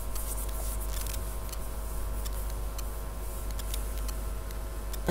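Steady low electrical hum with a faint steady whine, plus scattered light clicks from small tools and hands handling soft gumpaste.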